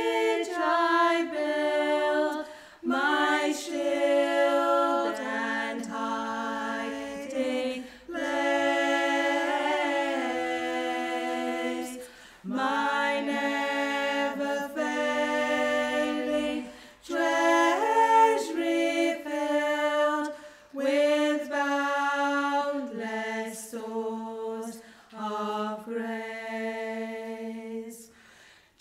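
Three women singing a hymn unaccompanied in harmony, in long held phrases broken by short pauses for breath.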